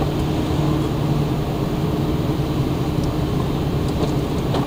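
Lada Granta's engine and tyres on a wet road heard from inside the cabin while driving: a steady low drone with road hiss. Two faint ticks come near the end.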